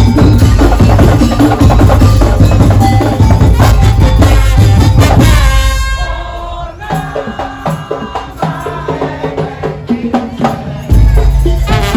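Percussion-heavy band music in the Madurese daul style, with drums and rattling percussion. About halfway through the full band drops away to a thinner, quieter passage, then comes crashing back in with heavy bass near the end.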